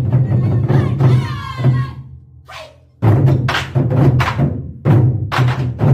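Large Korean drums (buk) struck together in a driving rhythm of repeated heavy strokes. The drumming drops away about two seconds in and comes back strongly about a second later.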